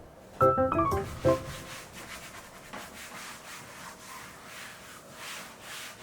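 Rhythmic rubbing strokes, about two to three a second, like something being scrubbed or rubbed by hand. A few soft background music notes sound in the first second.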